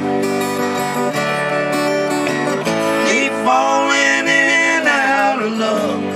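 Live duo of acoustic guitar and hollow-body electric guitar playing together, the electric played through a small Egnater amp, with a man singing over them from about three and a half seconds in.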